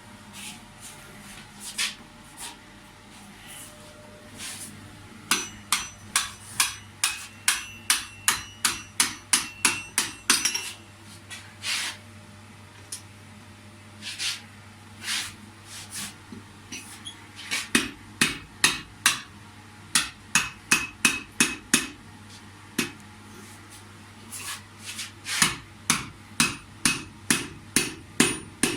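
Hand hammer striking metal, as at the forge, in quick runs of blows about two to three a second with short pauses between the runs. Some blows leave a brief metallic ring.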